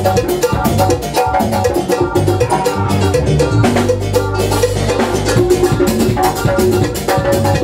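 Live band playing dance music: keyboard over drum kit and hand percussion, with a steady, even beat.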